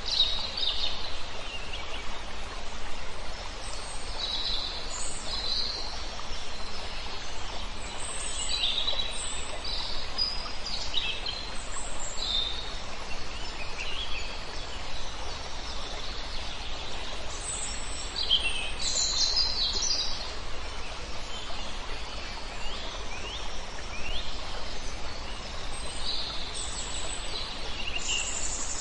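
Birds calling at dusk: short, high chirps and whistled calls, several sweeping in pitch, come every second or two over a steady outdoor background noise.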